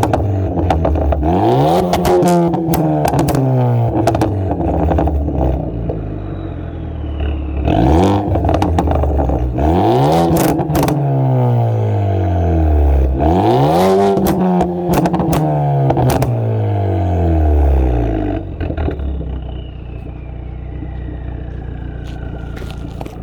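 2014 Ford Focus ST's 2.0 turbocharged four-cylinder, straight-piped from the turbo back through a 2.5-inch exhaust and tuned for pops and crackles, is revved up sharply three times. It crackles and pops loudly as the revs fall away each time, then settles to a steady idle for the last few seconds.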